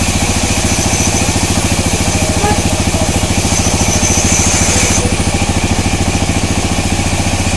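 Sawmill machinery running steadily with a fast, even pulsing throb.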